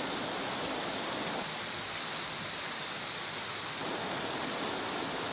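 Steady rush of flowing stream water, an even hiss with no separate splashes or other events.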